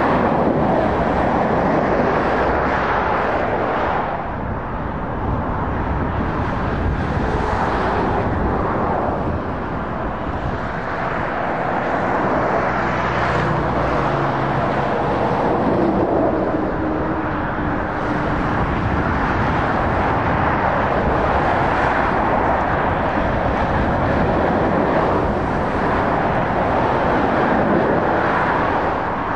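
Steady motorway traffic: heavy goods lorries, vans and cars passing at speed, with diesel engines and tyre noise on the road surface. The noise rises and falls a little as vehicles come by.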